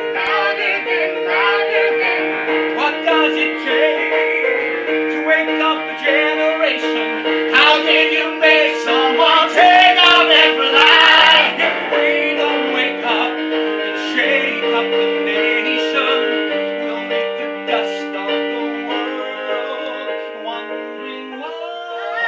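Musical-theatre song sung live by a trio of two men and a woman, the men taking turns at the lead, over an accompaniment of long held chords.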